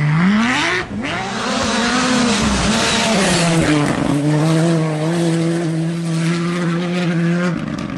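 Rally car engines at high revs. The first rises in pitch under hard acceleration and is cut off about a second in. A second car follows, its engine note climbing and dropping with a hiss of tyres on loose dirt around three seconds in, then holding a steady high note for about three seconds before the sound cuts.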